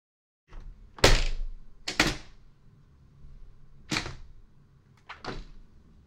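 A vertical sliding-projecting casement window being worked, its sash pivoting and sliding along the frame track: a faint click, then four sharp clunks from the sash and its hardware, about one to two seconds apart, the first the loudest, each trailing off briefly.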